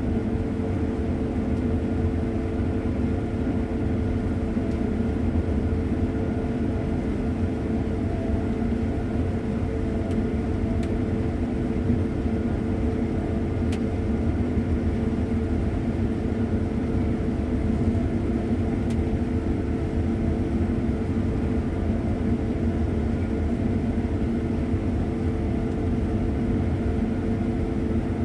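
Combine harvester running steadily while cutting soybeans: a constant machine drone with a steady hum that doesn't change.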